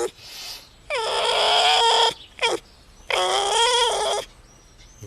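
An animal crying out in drawn-out, wavering, pitched calls: a long call about a second in, a short one, then another long one near the middle.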